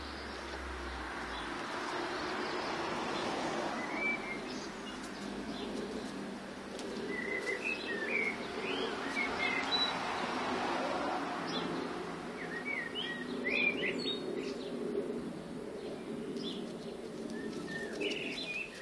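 Small birds chirping in short, scattered calls, most of them in the middle of the stretch, over a steady hum of background noise.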